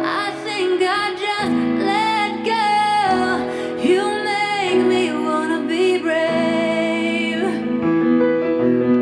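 A song with a woman singing long, gliding held notes over piano and sustained chords.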